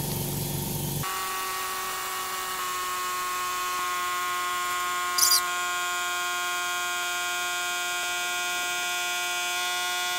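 Lakoni Fresco 130X oilless air compressor running as it fills its tank: a steady motor whine of several tones. The low rumble drops out about a second in, and a short hiss comes about five seconds in.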